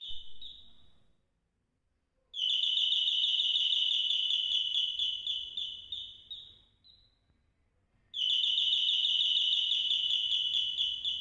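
CONA Mini Parrot electric doorbell playing its parrot chime: the tail of one run of rapid, high electronic chirps, then two more runs a few seconds long, each fading out, with a short silence between.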